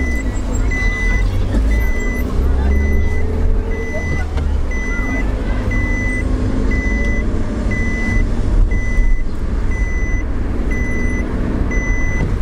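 An electronic warning beep, one high tone about once a second, repeating evenly, over the low rumble of engine and road noise inside a moving car's cabin.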